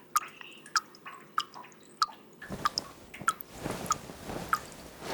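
Water dripping from a leak, single drops at about two a second, each a short plink. A soft low rushing noise joins about halfway through.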